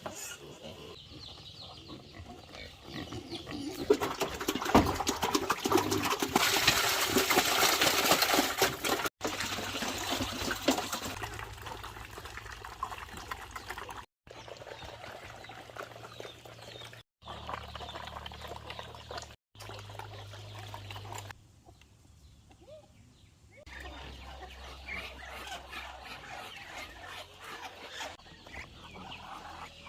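Pigs grunting across a series of short cuts. About four seconds in, a loud rushing, splashing noise rises for around five seconds, then cuts off suddenly.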